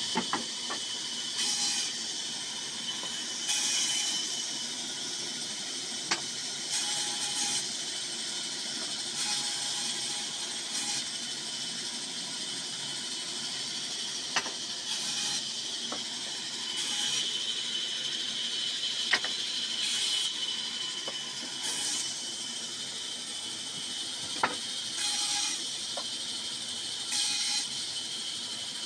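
Vertical band saw running with a steady high whine, and a burst of hiss every few seconds as wooden blocks are pushed through the blade. A few sharp clacks of wood pieces knocking on the steel table.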